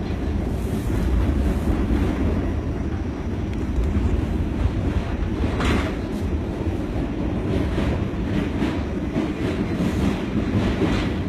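Subway train running, heard from inside the car: a steady low rumble, with brief higher rattling noises about six seconds in and again near the end.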